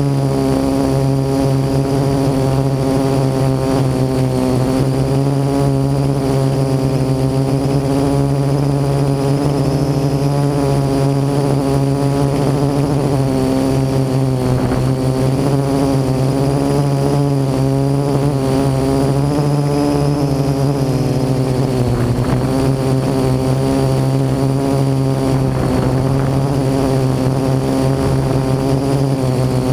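Parrot AR.Drone quadcopter's electric motors and propellers buzzing steadily while it hovers, heard close up from on board. It is a low hum with many overtones that waver slightly in pitch, dipping briefly about three-quarters of the way through.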